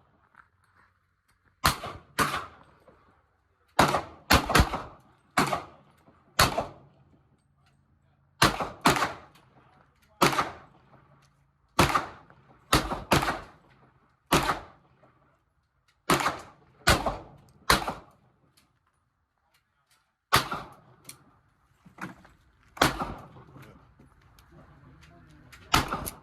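Gunshots at a firing range: about two dozen single reports at an uneven pace, some in quick pairs, each with a short ring-off.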